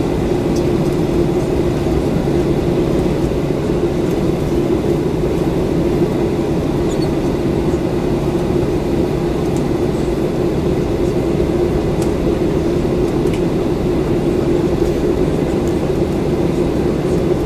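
Cabin noise of a Boeing 737-900 on the ground, its CFM56-7B engines running near idle: a steady low hum over a rumble, unchanging throughout.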